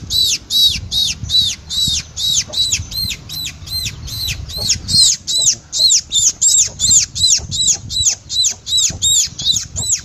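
Fledgling sparrow held in the hand, chirping over and over at about three or four short chirps a second, each rising and then falling in pitch.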